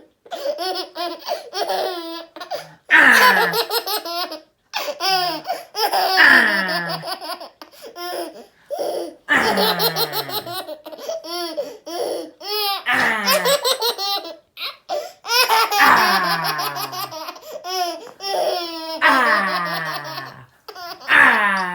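A young child laughing hard in repeated bouts, about every three seconds. Each bout opens with a high squeal that falls steeply in pitch and runs into quick, breathy laughs.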